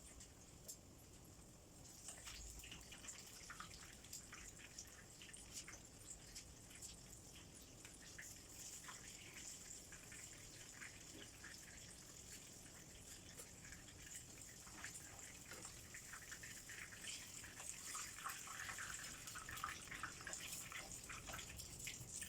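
Butterfly shrimp frying in hot oil: a faint, steady sizzle full of small crackles and pops, busier near the end.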